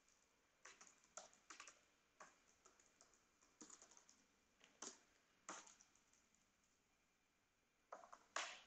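Faint keystrokes on a computer keyboard: irregular bursts of typing, a pause of about two seconds, then a louder flurry of keys near the end.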